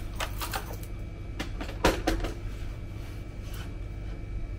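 A few scattered knocks and clicks from a nail gun and a wooden straight edge being handled against a chipboard counter front, the loudest a single sharp knock about two seconds in. A steady low hum runs underneath.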